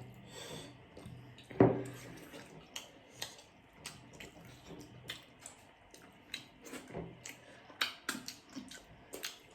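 Close-up wet eating sounds of momo dumplings in soup: irregular chewing, smacking and slurping clicks, with one louder sound about one and a half seconds in.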